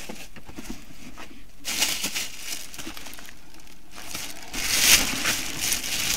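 Shopping bag or packaging crinkling and rustling as purchases are handled, in two spells, the second louder.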